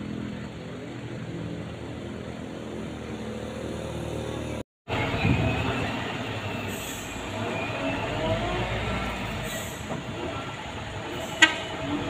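Hino 500 FM 260 TI truck's turbo diesel engine running under load on a steep climb, with a whine that rises and falls. One sharp loud crack comes near the end.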